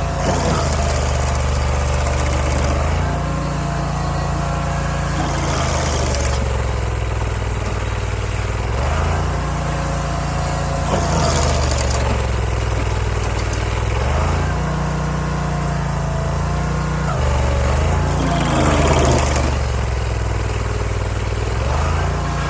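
Barreto SG3630 stump grinder's engine running, its pitch dipping and recovering every few seconds with a burst of grinding noise, as the cutter wheel takes load on each sweep through the stump.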